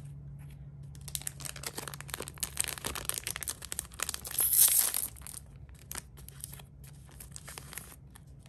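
Foil booster pack of trading cards being torn open and handled: a dense crinkling rip that is loudest about four and a half seconds in, followed by lighter, scattered crinkles of the wrapper.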